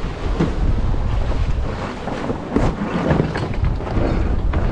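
Wind buffeting the microphone aboard a small sailboat under sail, a heavy, fluttering low rumble, with water washing against the hull.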